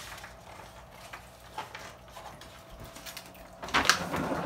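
A faint steady hum with scattered small clicks, then a short burst of clattering and rustling about four seconds in, as something is handled close to the microphone.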